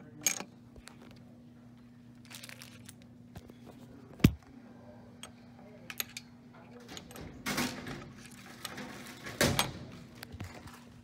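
Handling of a quarter candy vending machine's metal dispensing chute and flap: scattered light clicks, one sharp metal clack about four seconds in, then two short rustling rattles near the end as the candy is taken out.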